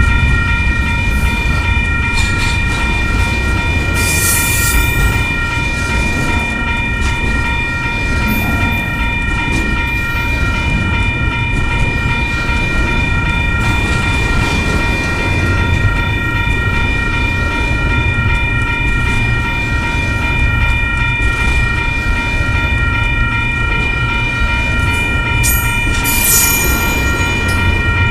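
Double-stack intermodal container cars rolling past close by: a steady, dense rumble of steel wheels on rail, over a constant high-pitched whine.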